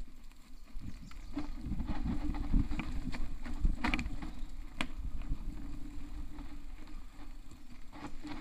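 Mountain bike rattling down a rough dirt singletrack: a low rumble of tyres and suspension with scattered sharp knocks and clicks from the bike over bumps, the loudest about four seconds in and again just before five seconds.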